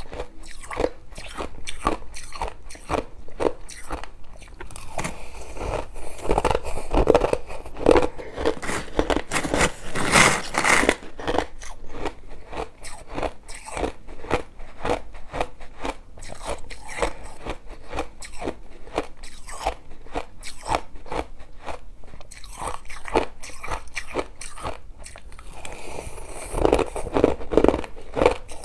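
Crushed ice being bitten and chewed close to the microphone: rapid, irregular crunching that runs on continuously, with louder bouts of crunching around a third of the way in and again near the end.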